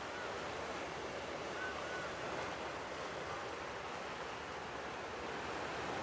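Atlantic Ocean surf washing onto the beach: a steady rushing noise with no distinct breaks. A few faint short chirps ride over it.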